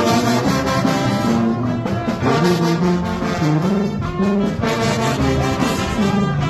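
Music with brass horns playing held, shifting notes.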